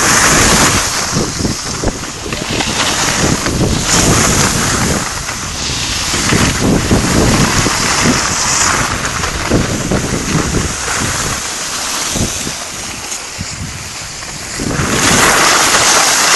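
Wind rushing over the microphone while skiing downhill, mixed with skis hissing and scraping over hard, icy piste snow. The noise swells and eases every second or two with the turns.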